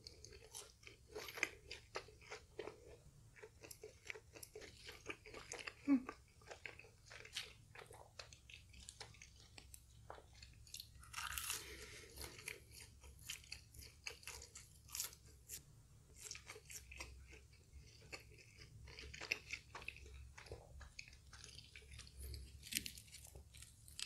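Close-miked chewing of a crispy, batter-coated fried chicken nugget, with many small irregular crunches of the fried crust.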